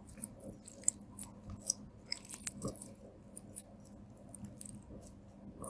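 Green slime with glitter and eyeshadow mixed in, kneaded and squeezed by hand, squelching with irregular small crackles and pops.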